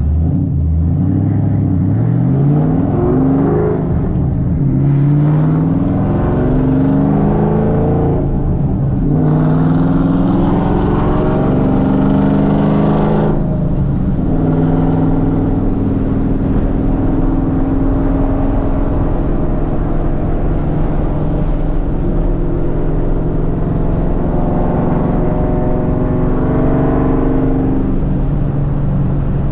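Cammed Ford 4.6L 2V V8 with long-tube headers, an H-pipe and straight pipes, pulling hard through the gears: the pitch climbs, drops at each shift and climbs again about three times. It then settles into a steady cruise and eases off near the end.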